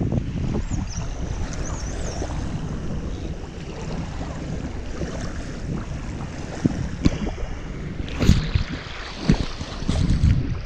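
Wind buffeting the microphone over the wash of sea waves, with several short knocks and bumps in the second half.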